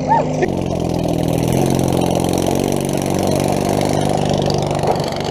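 Small riding-lawnmower engine running steadily at a fairly even speed, its pitch stepping slightly twice as the throttle changes.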